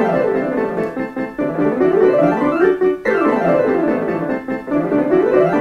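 Solo piano playing an instrumental interlude of fast arpeggio runs that sweep down and then back up, twice.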